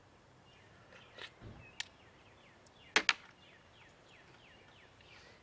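A few sharp clicks and knocks as clam shells and a shucking knife are handled on a wooden shucking board and tray. The loudest is a sharp double click about three seconds in. Faint falling chirps repeat in the background.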